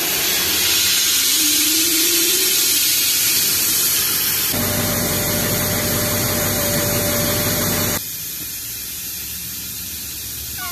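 Steady hiss of compressed air inflating an air mattress. The hiss drops in level about eight seconds in.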